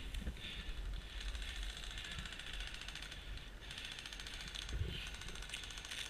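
Airsoft guns firing in rapid full-auto strings, a fast dry clicking like a typewriter that comes and goes in strength.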